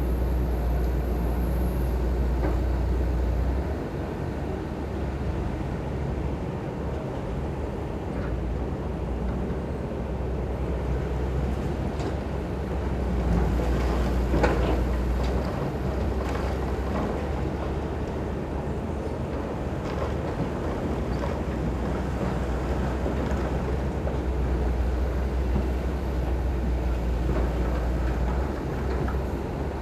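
Heavy diesel construction machinery running, a steady low engine rumble that swells and eases off, with a few short knocks, the loudest about halfway through.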